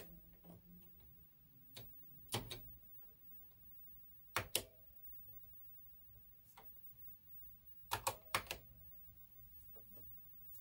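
Keys being pressed on a computer keyboard: a handful of sharp clicks, singly and in quick pairs and threes, spread out with pauses between.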